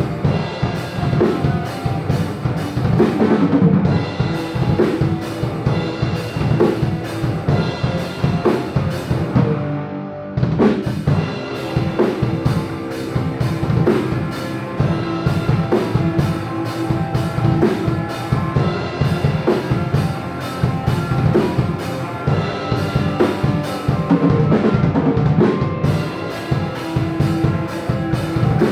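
Hardcore metal band rehearsing live: electric guitars, bass guitar and drum kit playing together, with a brief drop in the music about ten seconds in.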